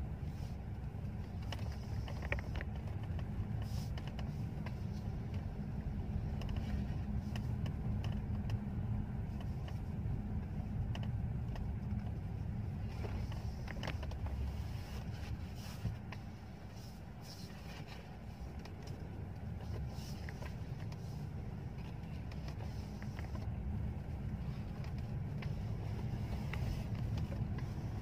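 Steady low rumble of a Mercedes-Benz S-Class driven slowly, heard inside the cabin, with a few faint clicks. It eases off a little about two-thirds of the way through.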